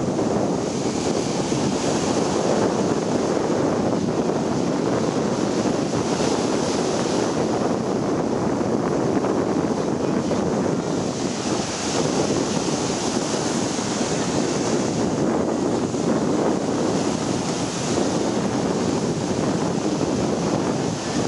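Ocean surf breaking and washing onto the beach, a steady rushing that swells and fades every few seconds as each wave breaks, with wind buffeting the microphone.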